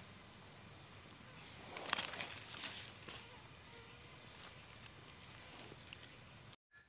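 Insects singing: a steady, high-pitched shrill on two held tones. It comes in abruptly about a second in and cuts off sharply near the end.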